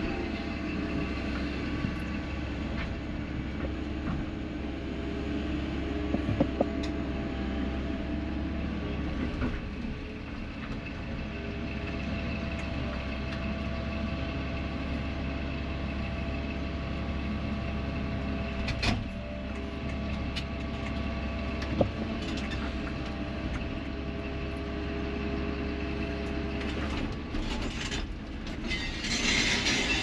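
Excavator engine running steadily with its hydraulics working, heard from inside the cab as the bucket digs and dumps dirt, with a few sharp knocks. A hiss comes in near the end.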